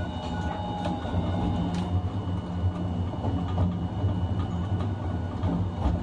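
Running noise of a Hiroshima Electric Railway 1000-series low-floor tram with Toyo Denki IGBT inverter drive, heard from inside the car. A steady low rumble of wheels on rail carries a faint steady high whine, with a couple of sharp clicks from the track, one about two seconds in and one near the end.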